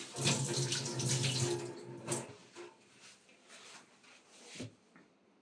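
Kitchen tap running as a tomato is rinsed under it, shut off about two seconds in; a few light knocks follow.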